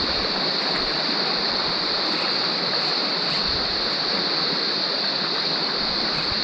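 Shallow rocky stream running over stones: a steady rush of water, with a steady high-pitched insect drone above it.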